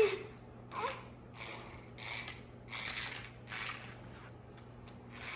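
Small electric motor of a remote-control toy car whirring in short bursts, about six times in a few seconds, as the throttle is pulsed on and off. A faint steady hum runs underneath.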